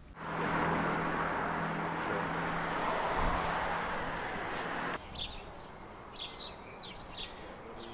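A steady rushing noise with a low hum for about five seconds, cutting off abruptly, then quieter open-air ambience with small birds chirping several times.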